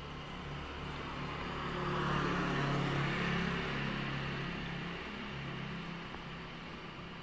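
An ambulance engine running as the van drives slowly across the station forecourt. Engine and tyre noise swell to a peak about two to three seconds in, then fade.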